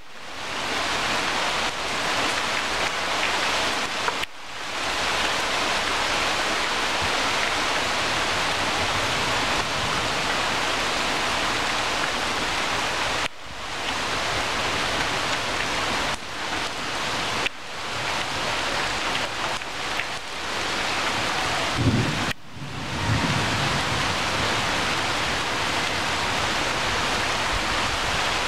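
Steady rain falling on tree leaves, an even hiss that drops out briefly and swells back several times. A short low rumble comes about three-quarters of the way through.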